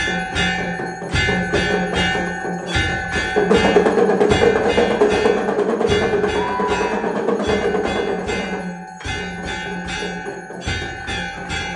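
Temple bells rung in a steady rhythm with struck percussion, about two or three strikes a second, the ringing tones hanging on between strikes, as at an aarti. From about three and a half seconds in to about nine seconds the sound thickens into a louder, denser clamour, then the even strokes return.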